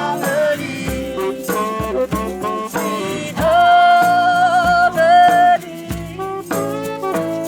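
Music: a melody sung or played over steady low notes, with a shaken rattle keeping the beat; one long held note from about three and a half to five and a half seconds in.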